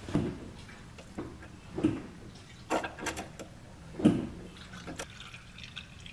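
Brake fluid and air spurting through an opened speed bleeder into a clear bleed tube while the brakes are pumped to clear the line, with a few dull thumps about two seconds apart and some sharp clicks.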